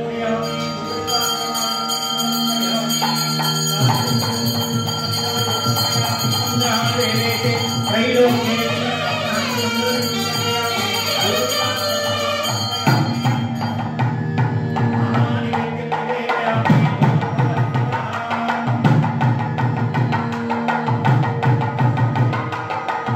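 Nagaswaram playing a Carnatic melody over a steady drone, with drum strokes joining about four seconds in.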